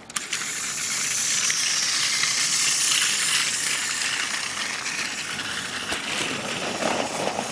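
A steady hissing rush that starts suddenly and cuts off suddenly about seven and a half seconds later.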